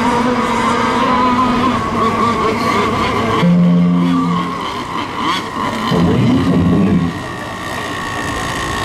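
Radio-controlled racing boat engines running at speed on the water: a steady high engine note with overtones. The note changes about three and a half seconds in, a boat's note sounds again briefly around six to seven seconds, and then the sound drops a little.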